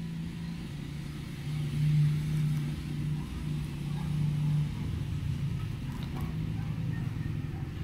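A steady low engine hum, growing louder for about a second twice: around one and a half and three and a half seconds in.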